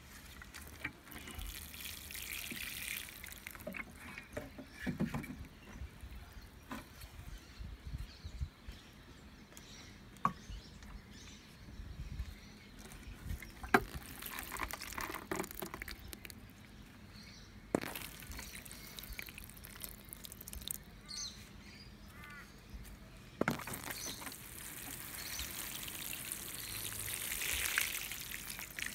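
Water sprinkling from a plastic watering can's rose onto potted plants and soil, in several pours, the longest near the end. A few sharp knocks fall between the pours.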